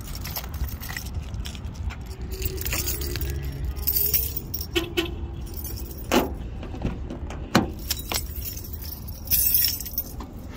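Keys jangling in several short bursts over a steady low rumble.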